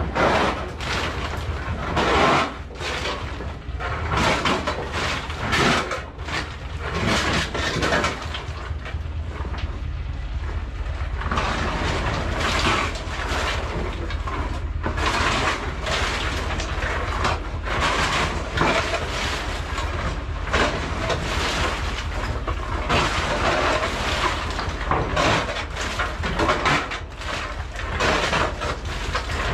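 Pieces of coconut meat for copra shoveled off a truck bed, clattering and rattling irregularly as they pour into a drying bin, over a steady low rumble.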